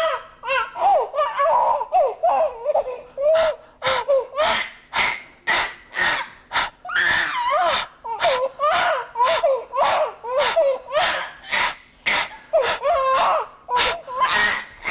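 Infant crying, the cry chopped into short rapid bursts about two a second as the baby's ribs are pressed and released in contact-breathing chest physiotherapy. Each press forces out a breath, so the cry keeps breaking off.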